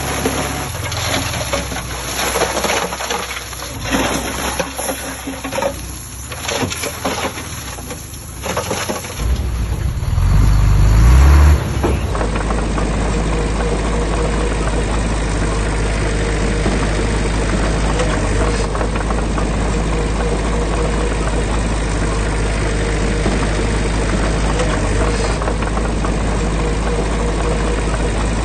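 Heavy construction machine's diesel engine running. It surges loudly in the low end about ten seconds in, then after an abrupt cut settles into a steady low drone.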